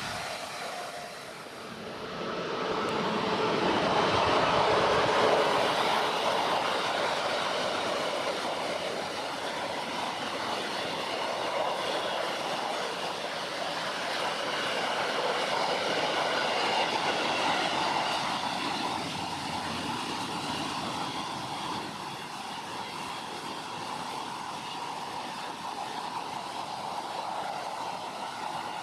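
Train running past: a steady rushing noise that swells about four seconds in and then carries on evenly.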